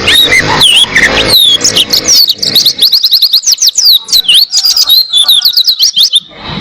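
White-eye (pleci) singing a long, fast, unbroken run of high, sharply slurred chirps, stopping abruptly near the end.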